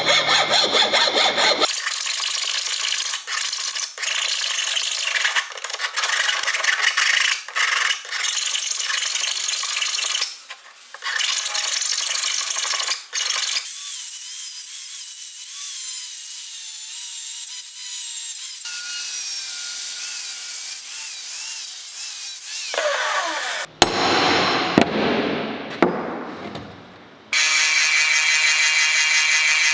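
Hand file scraping in repeated strokes against a square steel tube for the first dozen seconds. Then an angle grinder runs with a wavering whine as its abrasive disc works over the tube. Near the end a drill press runs steadily while its twist bit drills into the steel tube.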